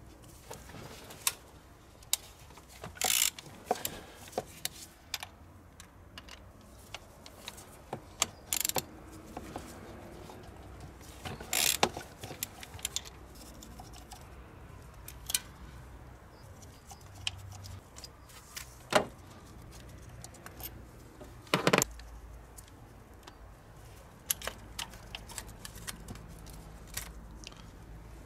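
Scattered metallic clicks and clinks of a ratchet wrench with a Torx bit undoing the injector bracket bolts on a diesel engine, with a handful of louder sharp knocks as tool and bolts are handled.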